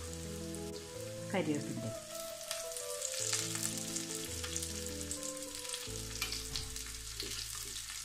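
Mustard seeds and sliced shallots sizzling and crackling in hot coconut oil, frying for a Kerala-style tempering as the shallots brown.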